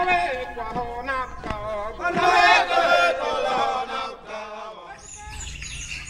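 Several voices chanting together in a rising and falling melody. Near the end the chanting stops and birds chirp with high, quick calls.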